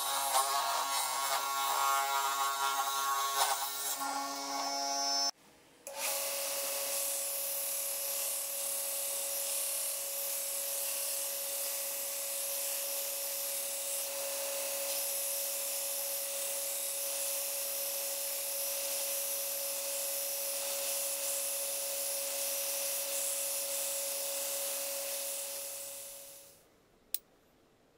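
A small bench-top saw cutting through a wooden block for the first few seconds, then, after a brief break, an electric belt sander running steadily with a constant hum as the wooden block is sanded against the belt, fading out near the end.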